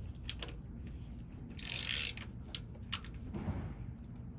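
Hand ratchet wrench clicking, with a dense half-second run of clicks about two seconds in, among a few scattered metallic clicks.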